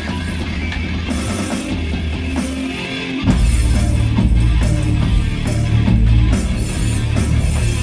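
Live rock band playing loud, with electric guitar and drums; about three seconds in the bass end comes in much heavier and the band gets louder.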